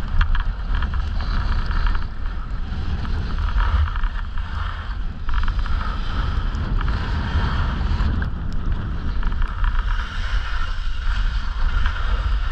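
Wind rushing and buffeting on the microphone during a downhill ski run, with the steady hiss and scrape of skis sliding over packed snow.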